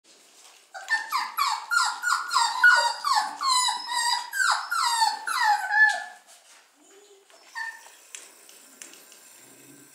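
Petit Basset Griffon Vendéen (PBGV) puppy whimpering and yelping in a quick run of high cries, about three a second, each falling in pitch; the cries stop about six seconds in.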